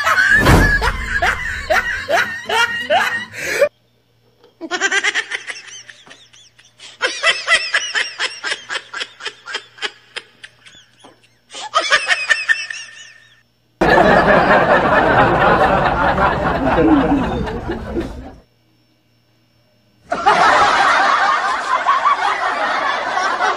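Laughter sound effects edited in as several abruptly cut clips. In the first half a person laughs in rhythmic bursts of several pulses a second. From about 14 seconds the laughter is denser and continuous, broken by a short silence near 19 seconds.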